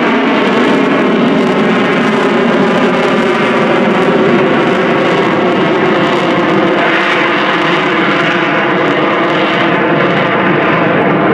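AV-8B Harrier II's Rolls-Royce Pegasus vectored-thrust turbofan running loud and steady at high power. It is a dense jet noise with several steady whining tones through it.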